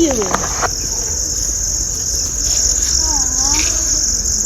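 Steady, high-pitched chorus of insects shrilling without a break. There is a short falling call at the very start and a faint wavering call about three seconds in.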